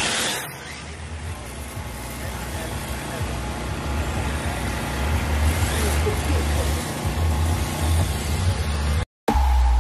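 Motor vehicle engine rumbling amid dense outdoor noise, growing louder partway through. Music with heavy bass cuts in near the end after a brief dropout.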